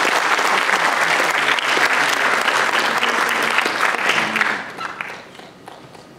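An audience in a lecture hall applauding at the end of a talk. The clapping holds steady for about four and a half seconds, then dies away over the next second.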